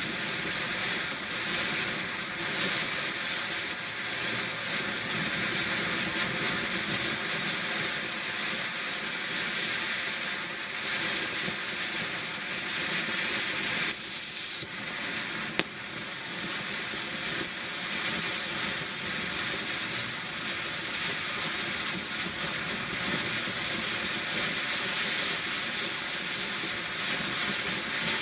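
Green Goblin ground fountain firework spraying sparks with a steady hiss. About halfway through, one loud, short whistle falls in pitch.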